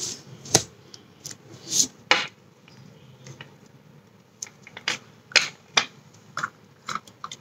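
Scattered short clicks and taps as a small glass jar is handled and black slime is pulled out of it by hand, with sticky pops from the slime. About a dozen separate clicks, irregularly spaced.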